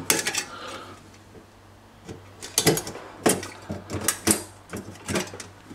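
Several short, sharp clicks and taps of a small metal heat transfer clip being clipped into place in a Samsung fridge's cooler section, spread irregularly over a few seconds.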